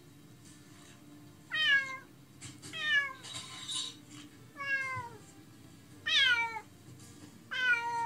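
Domestic cat meowing five times, each call about half a second long and falling in pitch. It is lonely crying while left alone, which the owners suspect is separation anxiety.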